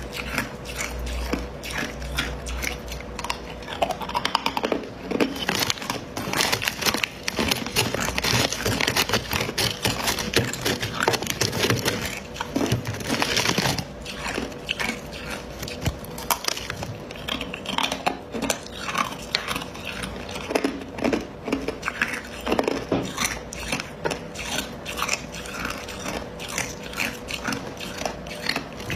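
Hard ice being bitten and chewed close to the microphone: a dense run of sharp crunches and crackles, busiest through the middle.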